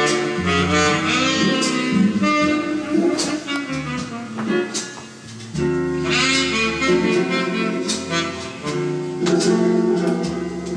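Instrumental music with a jazzy melody line, played from a vinyl record on a 1970s Philips record player.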